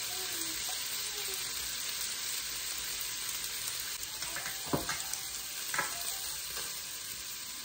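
Chicken sausages sizzling in a stainless steel frying pan, a steady hiss. Two brief knocks come about five and six seconds in.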